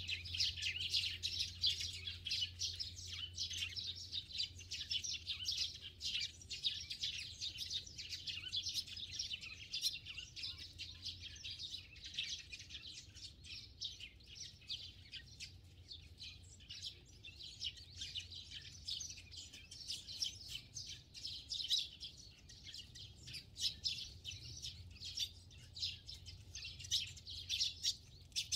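A flock of sparrows chirping continuously, many short chirps overlapping, busiest at the start and again near the end.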